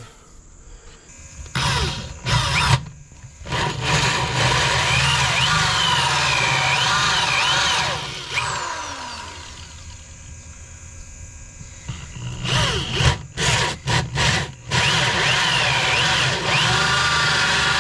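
Corded electric drill boring into a metal panel. It starts in short trigger bursts, then runs steadily with wavering high tones from the bit cutting the metal. The motor winds down about eight seconds in, then more short bursts come from about twelve seconds, followed by another steady run.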